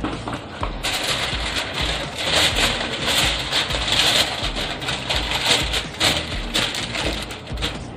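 A plastic bag and aluminium foil rustling and crinkling as they are handled, in irregular bursts, over background music.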